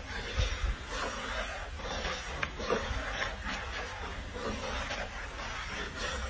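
Hot oil sizzling and crackling in a wok as food deep-fries, with a couple of low thumps about half a second in.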